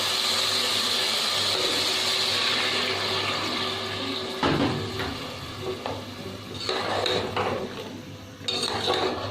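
Water poured into a hot pan of frying chicken and tomato masala, hissing and bubbling steadily. About four and a half seconds in the hiss drops away, followed by a few knocks and scrapes against the pan.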